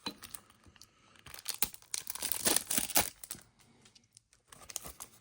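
Trading cards and their foil pack wrapper being handled: crinkling and rustling with sharp crackles, loudest for about a second in the middle.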